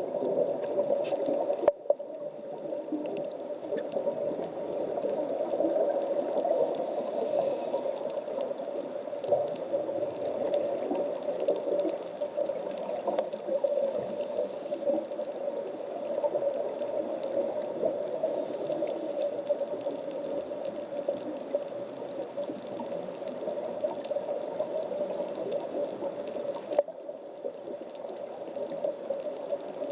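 Underwater sea ambience picked up through a waterproof camera housing at about 15 m depth: a steady, muffled rushing with fine crackle, and two sharp clicks, one near the start and one near the end.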